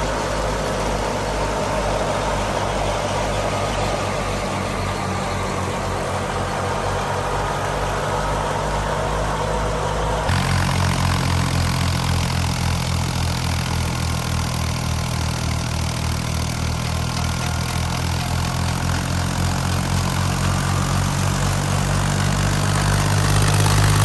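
Fiat 480 tractor's diesel engine running steadily while driving a wheat thresher, a low engine drone with a haze of machinery noise above it. About ten seconds in, the sound shifts abruptly and the engine note becomes stronger.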